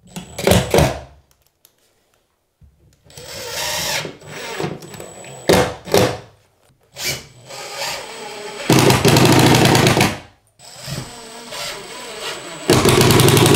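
Makita 18-volt cordless impact driver driving drywall screws into the studs in several short runs, the longest about a second and a half, with pauses between screws.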